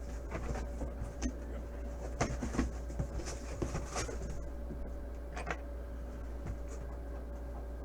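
Hands handling a cardboard box and packaging: scattered light knocks, taps and rustles, heaviest in the first half, over a steady low electrical hum.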